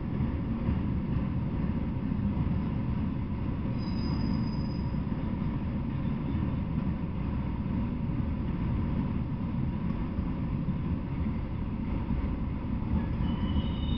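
Freight train of autorack cars rolling past with a steady rumble of wheels on rail. Brief high wheel squeals come about four seconds in and again near the end.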